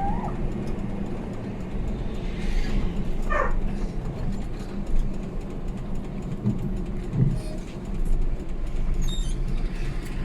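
Steady road-traffic and engine rumble, with a short gliding call about three seconds in and a couple of low knocks near the seven-second mark.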